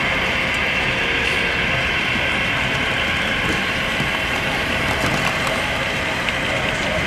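Model trains running on a layout's track, a steady rolling noise without a break.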